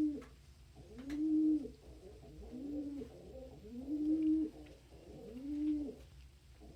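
Domestic pigeons cooing: about five low coos that each rise and fall, one every second and a half or so, with softer coos overlapping them.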